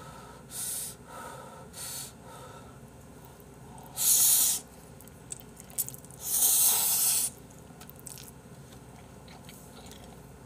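A person slurping Jjapaghetti instant black-bean noodles, with a few short slurps in the first two seconds and two long, loud hissing slurps about four and six and a half seconds in. Faint wet chewing and small mouth clicks come between.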